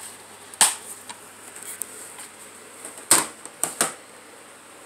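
Handling noise: a few sharp clicks and knocks as plastic DVD cases and the phone are moved, one about half a second in and a quick group of three between about three and four seconds in, over a faint steady hum.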